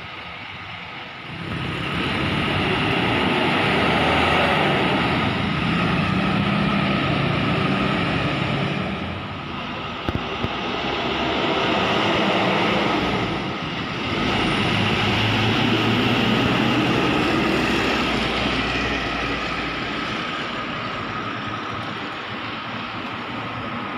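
Buses' diesel engines running as they drive past, the noise swelling about a second in, dipping briefly twice, and easing off near the end.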